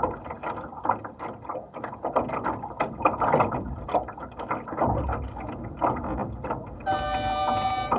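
Water splashing and slapping against a small sailing dinghy's hull as it moves. About seven seconds in, a steady pitched horn blast sounds.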